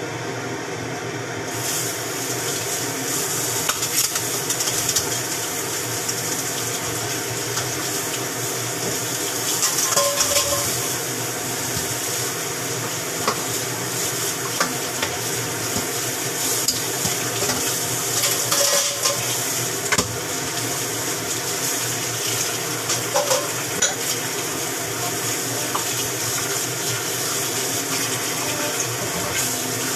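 Kitchen clatter: scattered clinks and knocks of pots, dishes and utensils over a steady hiss that starts about a second and a half in, with a fan humming underneath.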